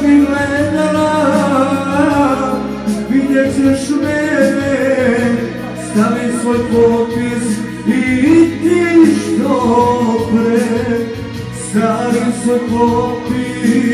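Live band music with singing over a steady beat.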